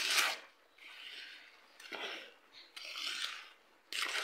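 Grated cassava being mixed by hand into beaten egg and sugar in a bowl: short wet rustling strokes, about one a second, as the fingers work the shreds into the batter.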